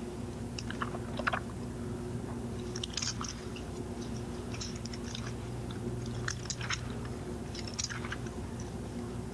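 Thin Bible pages being turned, rustling and crinkling in short scattered crackles, over a low steady hum.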